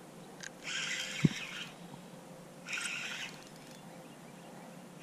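Spinning reel cranked in short bursts about two seconds apart while a hooked fish is played in, with one sharp knock between the first two bursts.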